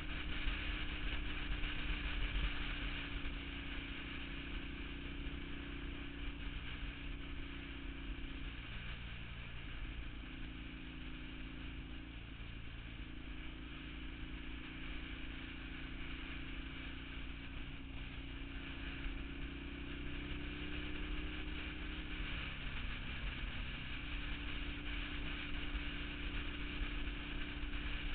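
A vehicle's engine drones steadily at road speed over constant road and wind noise. Its pitch drops and recovers a few times, around a third of the way in and again near the end.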